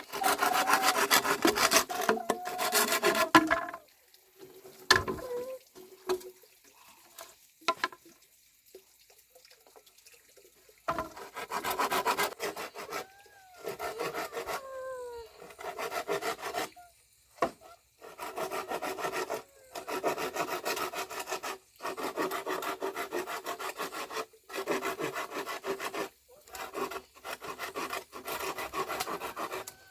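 Hand saw cutting wood in runs of quick back-and-forth strokes, with short pauses between runs.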